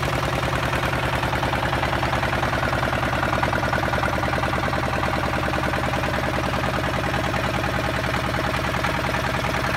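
Small fishing boat's engine running steadily under way, with a fast, even chugging beat.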